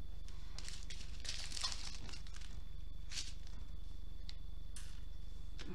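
Small plastic bags of diamond-painting drills crinkling in a few short rustles as they are picked up and set down, over a steady low hum.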